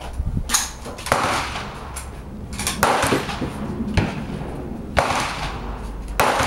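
Several sharp .22 LR rifle shots from a Ruger 10/22, irregularly spaced about a second or more apart, each a crisp crack with a short echoing tail.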